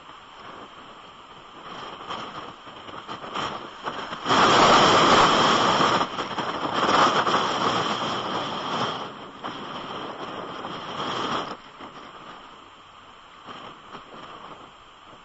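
Strong wind buffeting the microphone in heavy rain, a steady rushing noise. A loud gust comes in about four seconds in and dies back down several seconds later.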